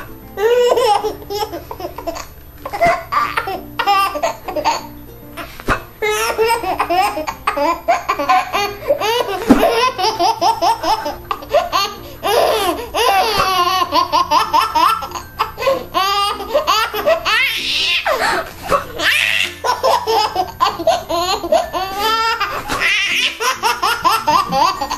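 A young child laughing hard and almost without pause, in long runs of belly laughter.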